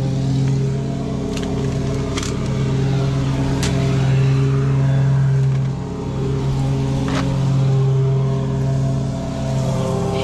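A motor running steadily at one constant pitch, with a few sharp clicks and knocks over it.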